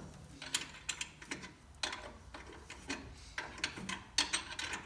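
Irregular metallic clicks of a hand tool turning the motor plate adjustment screw on a quarter midget race car, snugging it up to take the slack out of the drive chain.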